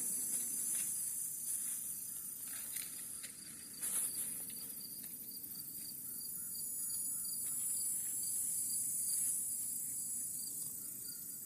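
Steady high-pitched chorus of insects, crickets or similar, with a faint regular chirp pulsing under it and a few soft rustles of plants.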